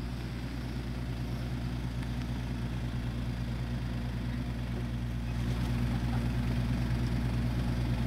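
Pickup truck engine running steadily as the ute, towing a small trailer, drives up and comes to a stop, getting louder about halfway through as it draws near.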